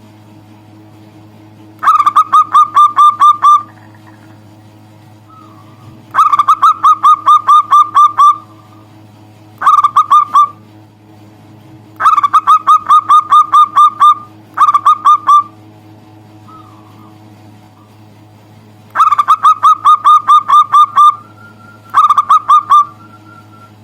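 Zebra dove (perkutut) calling in loud bursts of rapid, evenly repeated notes, about eight a second, seven bursts with short pauses between.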